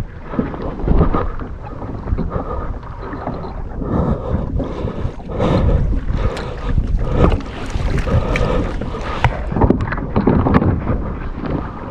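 Wind gusting over the microphone in uneven rumbling bursts, with water lapping against a kayak hull.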